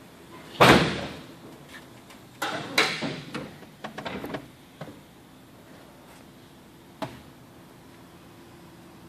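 Heavy steel door of a 1948 Ford Super Deluxe being worked: one loud clunk with a short ringing tail about half a second in, then a run of knocks and rattles for a couple of seconds, and later one sharp click.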